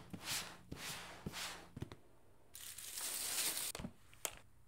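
Paper packaging handled by gloved hands: a few short rustles with soft taps on the cardboard box, then about a second of steady crinkling of tissue paper, ending in two sharp clicks.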